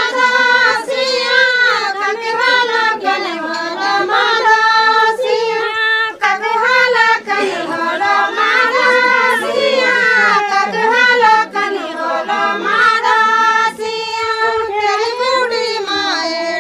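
A group of women singing a Garhwali folk dance song together in unison, without instruments, line after line with short breaths between phrases.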